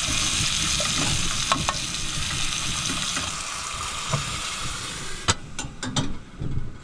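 Onions frying and sizzling in a pan, stirred with a few light clicks. About three seconds in the sizzle fades as a lid is closed over the pan, followed by several sharp clacks of the lid and pan handle.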